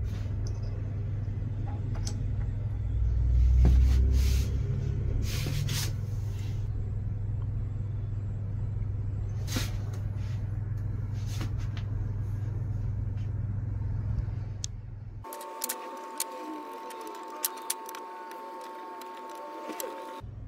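A steady low rumble that swells about three seconds in, with scattered light metal clicks from the lathe's tool post and shims being handled. About fifteen seconds in the rumble cuts off abruptly, leaving a faint steady hum and a few sharp clicks.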